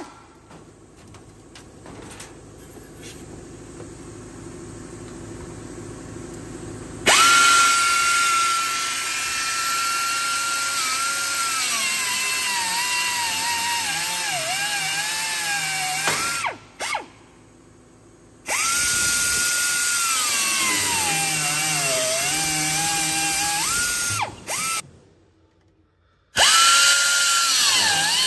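Pneumatic cut-off wheel cutting through metal grille mesh: a high whine that sags in pitch as the wheel bites into the metal and climbs back as it frees up. It starts about seven seconds in and runs in three bursts with short pauses between them, after a quieter opening stretch.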